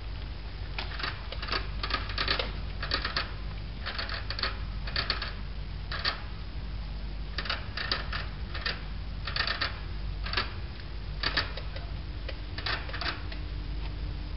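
Short bursts of rapid clicking, like typing, from the mice at the wire bars of their cage, a dozen or more bursts spaced irregularly over a steady low hum.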